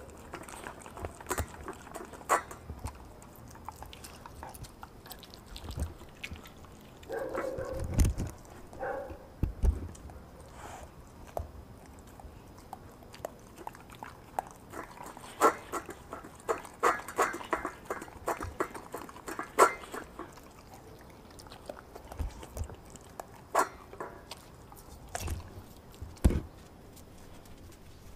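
A German shepherd–pit bull mix chewing and crunching raw meat and bone from a stainless steel bowl. Irregular crunches and clicks come in clusters and grow dense about halfway through, with a few dull knocks of the food against the metal bowl.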